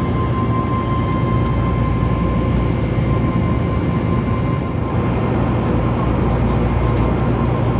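Steady cabin noise inside an Airbus A321neo in flight: a constant low rumble of engines and airflow with a steady high whine over it.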